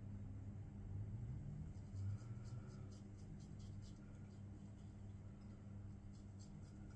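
Safety razor scraping through lathered stubble on the upper lip in short, quick strokes, faint, about four or five strokes a second: a run about two seconds in and a few more near the end.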